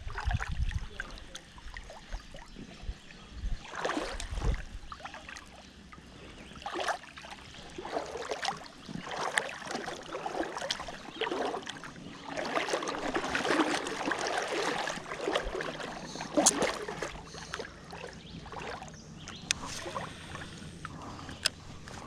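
Creek water splashing and sloshing in irregular bursts, heaviest from about twelve to fifteen seconds in.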